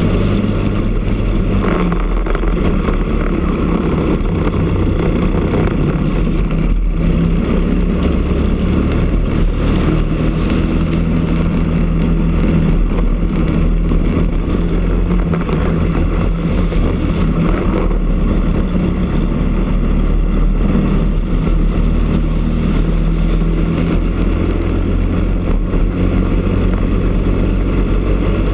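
Briggs & Stratton LO206 single-cylinder four-stroke kart engine running flat out under racing load, heard close up from on board. Its note falls and rises as the kart slows for corners and speeds up again.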